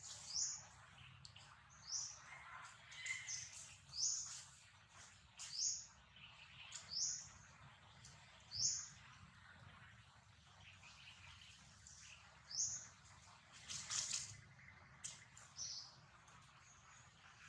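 A bird chirping repeatedly: short high notes that rise in pitch, about one a second, pausing for a few seconds midway, with a few faint clicks in between.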